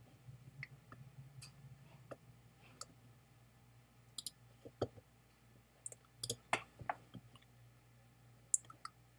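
Computer mouse clicks: about ten short, sharp clicks at uneven spacing, some in quick pairs, over a faint low hum.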